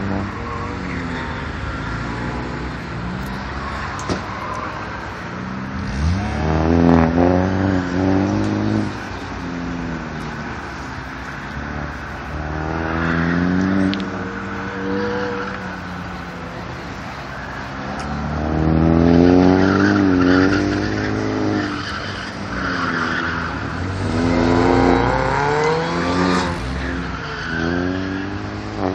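Chevrolet Cobalt SS Turbo's turbocharged four-cylinder engine revving up and dropping back over and over as the car accelerates and brakes through an autocross course, with tyres squealing through the corners. It swells loud several times as the car comes nearer and fades between.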